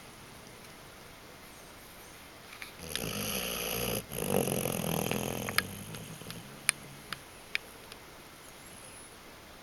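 Snoring: a low rumbling snore about three seconds in, a brief pause, then a longer snoring breath that fades out, followed by a few sharp clicks.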